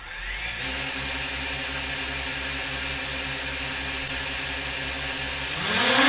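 DJI Mini 2 drone's motors with the stock DJI propellers spinning up and running at a steady whir. About five and a half seconds in, the pitch rises and it gets louder as the motors throttle up to lift off.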